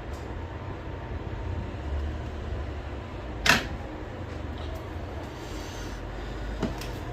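A sharp click or tap about halfway through and a softer one near the end, over a steady low hum.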